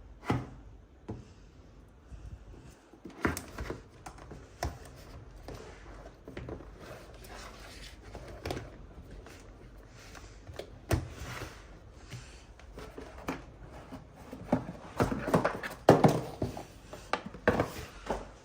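Irregular thunks, knocks and short clatters of objects being handled, some spaced out and some coming in quick clusters.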